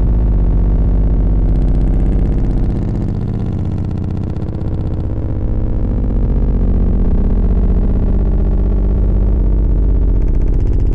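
Loud, deep bass test sound with a fast buzzing pulse, most of it in the lowest bass, dipping briefly in level a few seconds in.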